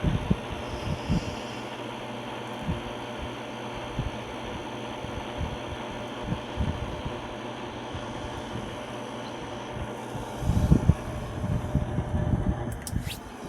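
Mabuhay Star clip-on mini ceiling fan running with a steady hum. Short low thumps come and go, heaviest about three quarters of the way through.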